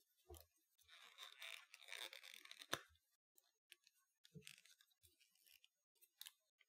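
Plastic parts of a small transformable Mewtwo figure being handled: a faint scraping rustle for about two seconds that ends in a sharp click, then a few small clicks and taps.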